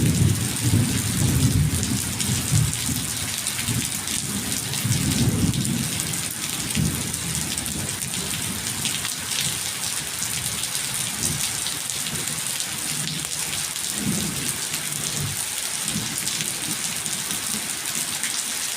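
Steady heavy rain hissing, with rolling rumbles of thunder that are loudest in the first few seconds and again about five seconds in, then come back weaker and shorter.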